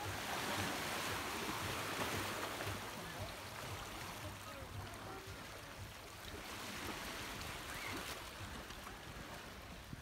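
Calm sea washing against the shore: a steady wash of low surf, a little louder in the first few seconds.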